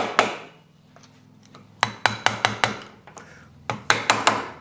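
Hammer tapping a screwdriver against a stiff circlip in a Land Rover Defender prop shaft's universal joint held in a steel vise: sharp, ringing metal-on-metal taps. One tap at the start, a pause, then two quick runs of about four taps each.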